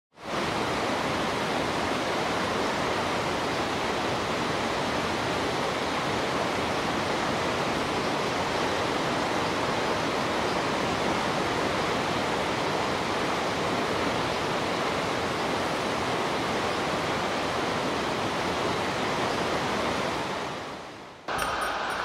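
Steady rush of falling water from Shōmyō Falls, a waterfall with a 350 m drop, starting sharply at the beginning and fading out near the end, where it is cut to a different steady rushing sound.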